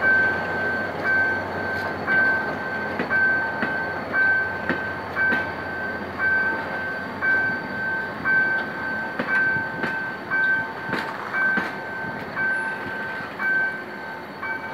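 Passenger coaches rolling past at low speed, wheels clicking over the rail joints. Over them a level-crossing warning signal sounds, a steady high beep repeating about twice a second.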